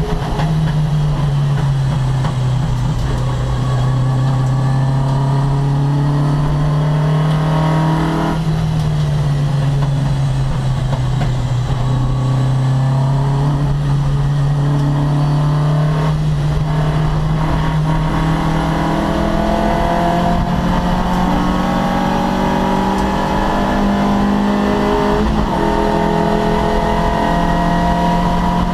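Opel Kadett C race car's engine running hard, its note slowly climbing in pitch and dipping briefly about eight and sixteen seconds in.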